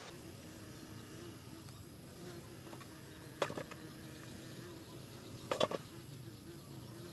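Hands smoothing and patting a wet clay sculpture, with two short bursts of rubbing and slapping about three and a half and five and a half seconds in, over a faint steady buzzing.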